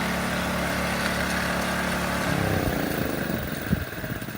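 An engine runs steadily, then drops in pitch and fades about halfway through. A single knock comes near the end.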